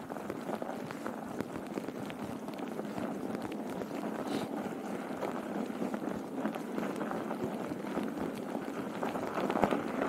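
Fat-tyre bicycle rolling over packed snow: a steady crunching hiss from the tyres, with many small crackles.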